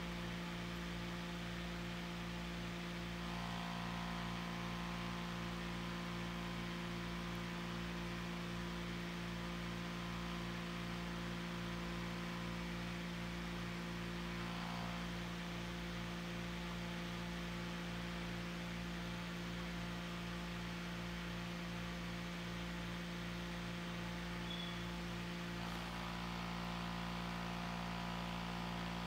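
Steady electrical hum made of several pitched tones. A few higher tones join about three seconds in, drop out around the middle, and come back near the end.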